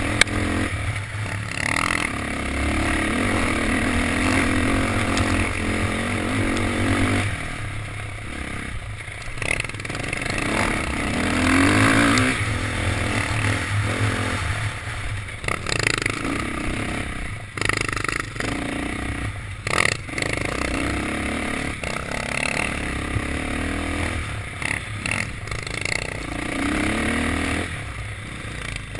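Dirt bike engine running on a trail ride, its pitch rising and falling with the throttle, with scraping, rattling and a few sharp knocks from the bike bouncing over the rough track.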